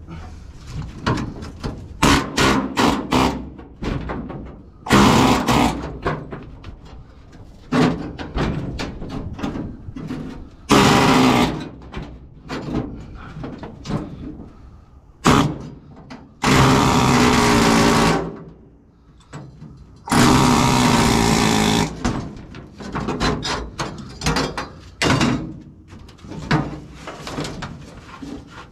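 Pneumatic air hammer with a chisel bit cutting the spot welds that hold a channel to the sheet-metal cab floor of a 1950 Chevy 3100. It runs in repeated bursts, the longest about two seconds, with many short stabs between them.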